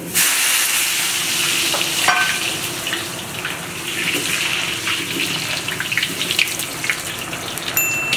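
Peeled whole potatoes going into hot oil in a kazan, bursting into loud, steady sizzling and crackling as they fry. A metal skimmer clinks against the pot, most clearly about two seconds in.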